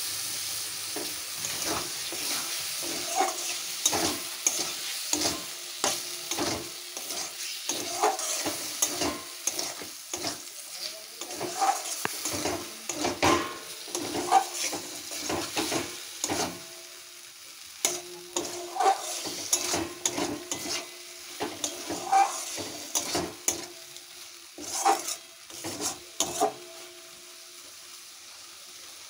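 Chicken liver and gizzard pieces sizzling as they fry in oily masala in a kadai, while a spatula stirs them with repeated irregular scrapes and knocks against the pan. This is the stir-frying stage, with the masala already cooked until the oil separates. The stirring strokes thin out about halfway through, and the sizzle goes on under them.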